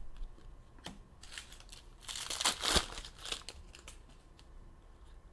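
Plastic crinkling and rustling as trading cards are handled, with a cluster of crinkly rustles and small clicks from about a second in, loudest around the middle.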